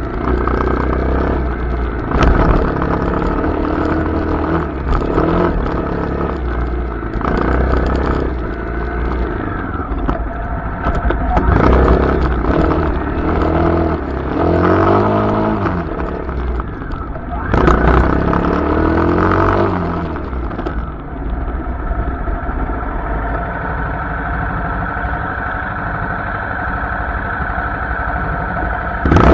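Honda CRF250L's single-cylinder four-stroke engine revving up and down repeatedly as the dirt bike is ridden along a trail. About two-thirds of the way in it settles to a steadier, lower note, then revs again right at the end.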